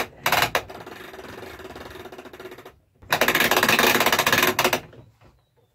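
Hand-cranked ratchet winch clicking rapidly as it winds in the strap that pulls a roll-off observatory roof open. It comes in two bouts, the second louder, and stops about five seconds in.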